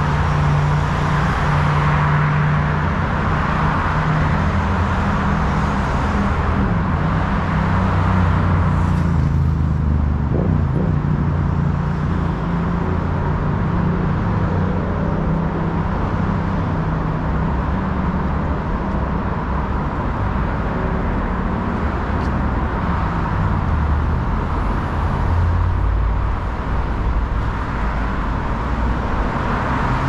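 City street traffic: motor vehicles passing with a steady low engine hum and tyre noise. The tyre rush swells over the first several seconds and rises again near the end.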